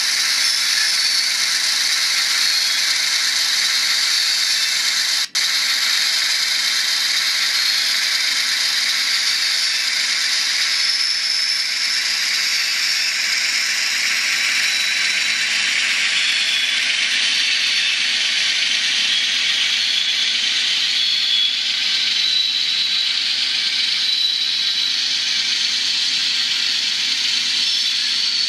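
N scale ES44AC GEVO model locomotive's LokSound Micro sound decoder playing its GE diesel engine sound through a tiny speaker, thin and hissy with no bass, over the running gear's mechanical rattle. The sound cuts out for an instant about five seconds in.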